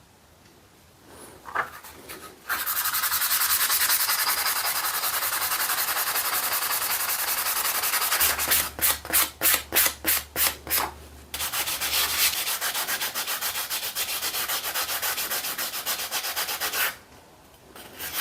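Hand sanding with a 600-grit flexible foam sanding pad on an old screwdriver, cleaning up rust and pitting. The pad rubs in a steady hiss, then in separate back-and-forth strokes about two or three a second midway, then steady again, with a brief pause near the end.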